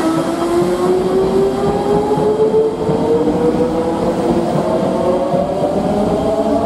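Odakyu stainless commuter EMU accelerating away from a platform: its VVVF inverter traction motors whine in several tones that rise steadily in pitch as the train picks up speed, over the rumble of wheels on rail.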